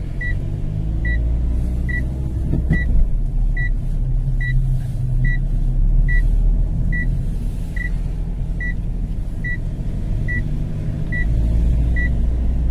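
Car cabin while driving slowly: steady low engine and road rumble, with a short high electronic warning beep repeating evenly about once a second.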